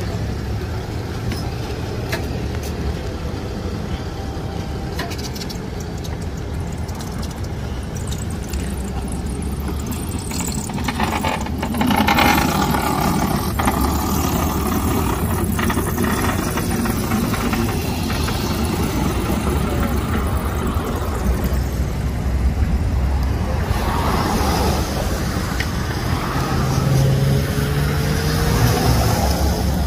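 Road traffic on a wet street: a steady low engine rumble, with passing vehicles whose tyres hiss on the wet road, louder about twelve seconds in and again near the end.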